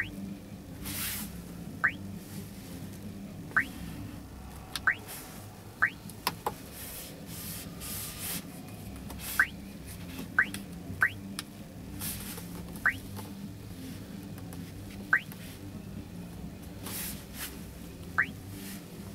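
Key-press beeps from the GAZelle Next's touchscreen radio head unit as its on-screen keys and buttons are tapped: about a dozen short chirping beeps at irregular intervals, over a steady low background hum.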